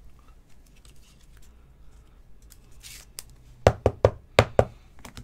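Trading cards being handled over a tabletop: faint rustling, then about three and a half seconds in, five quick sharp taps as cards are knocked and set down on the table.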